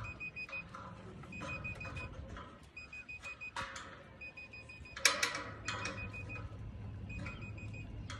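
Satellite finder meter beeping in quick runs of short high pips, about one run every second and a bit, its signal tone while the dish is being aimed. A brief clatter about five seconds in and a steady low hum sit underneath.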